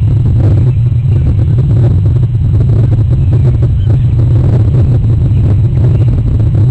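Loud, steady low rumble picked up by an outdoor nest-cam microphone.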